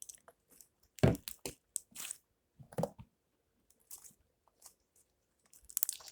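Slime and a small bottle handled by hand: irregular short squishes and clicks, with a louder knock about a second in.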